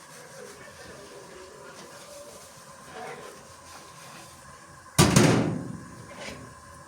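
A single loud bang about five seconds in, dying away within about a second, over a faint steady background.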